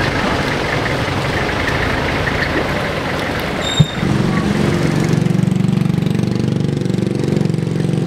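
Mixed street and vehicle noise, broken by a sharp click just before four seconds in. After the click a motor vehicle's engine idles steadily close by.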